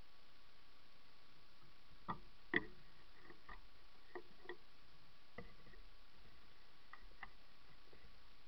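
A few scattered soft clicks and taps, the loudest about two and a half seconds in, over a steady hiss: handling noise from a bow and the camera mounted on it.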